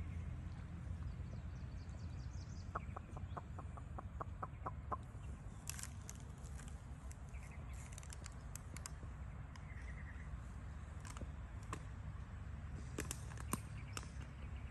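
A short run of clucking calls from a bird, about ten evenly spaced at roughly four a second. They sit over a steady low outdoor rumble, with scattered sharp ticks later on.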